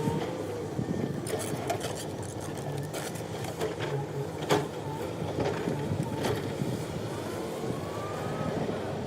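Construction machinery's engine running steadily, with scattered clanks and knocks, the loudest about halfway through.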